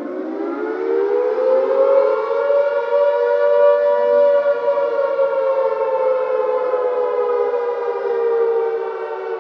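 Air-raid siren winding up from a low pitch to a long wail, which sags slightly in pitch near the end.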